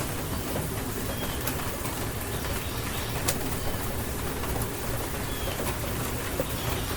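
Steady rain falling, with scattered sharp drop ticks. Birds give short high chirps several times through the rain.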